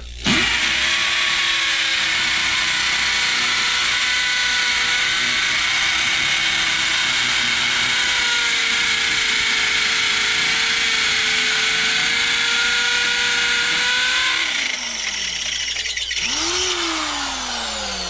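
Corded Bauer 1/2-inch hammer drill with a 3/8-inch carbide masonry bit hammer-drilling into a concrete floor slab, running loud and steady. About fourteen seconds in the motor lets off and its pitch falls. It briefly revs up again and winds down near the end as the bit is pulled from the hole.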